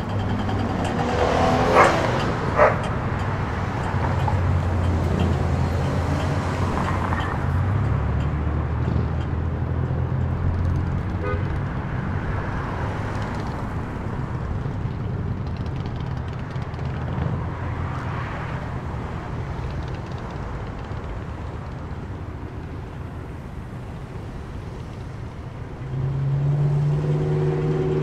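Vehicle engine and road traffic noise: a low, steady drone that shifts in pitch, with two sharp knocks about two seconds in. Near the end a louder engine hum comes in and rises slightly.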